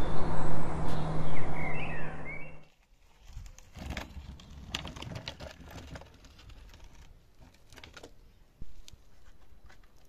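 A loud, dense sound with a steady low hum and high bird-like chirps cuts off sharply about two and a half seconds in. After that comes quiet outdoor ambience with birds and scattered light clicks.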